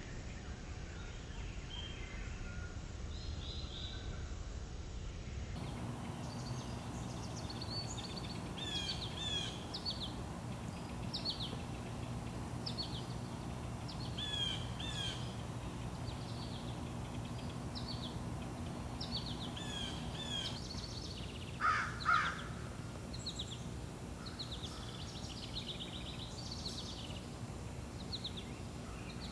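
Several small birds chirping with short, high, repeated notes, and one louder, lower two-note call about two-thirds of the way through, over a steady low hum.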